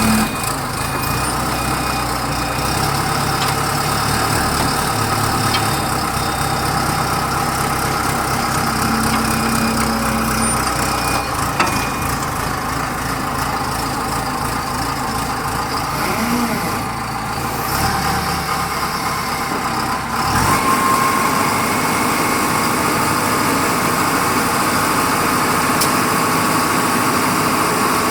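Engine of a 3.5 m3 self-loading concrete mixer running steadily. About two-thirds of the way through, the sound changes: the low rumble drops away and a steady higher whine comes in.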